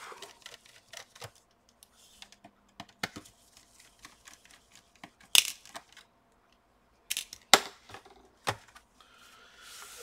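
Small clicks and taps of a screwdriver and loose screws on a laptop's plastic bottom case as its screws are taken out, with a few sharper clicks between about halfway and three quarters of the way in. Near the end there is a soft scraping as the laptop is moved on the work mat.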